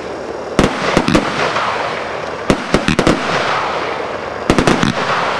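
A 100-shot consumer fireworks cake (Fireworksforall 'Fire Fighters') firing its shots in quick succession. There are about nine sharp reports in clusters of two or three, with the steady noise of the bursting stars in between.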